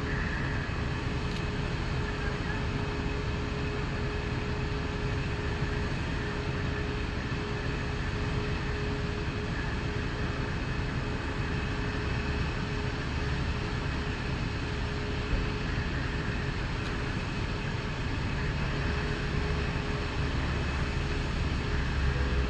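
Fire truck engines running steadily, a droning hum held over a low rumble.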